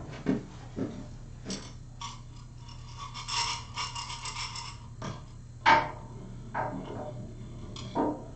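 Hands working with bolts and hardware: scattered clicks and knocks, a louder knock near the middle and another near the end, and a stretch of rattling about three seconds in, over a steady low hum.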